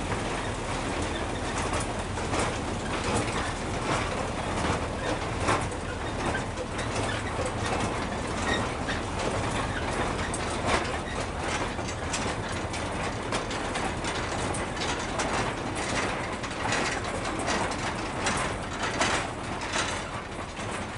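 Loaded narrow-gauge field-railway tipper wagons rolling past on the track: a steady rumble with many clacks and knocks from the wheels and couplings.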